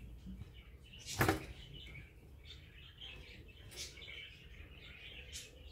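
Faint, scattered bird chirps. About a second in comes a short burst of noise, the loudest sound.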